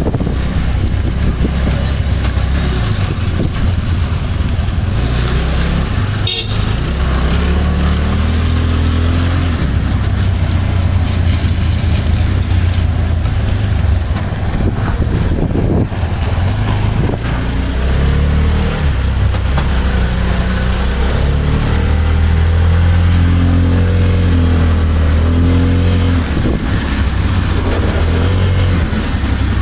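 A motor vehicle running with a steady low rumble, its engine pitch rising and falling several times, under a constant hiss.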